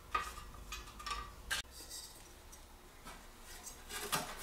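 Faint rustling and light scraping of fiberglass cloth being handled and laid against a steel ammo-box lid, with a sharp click about a second and a half in.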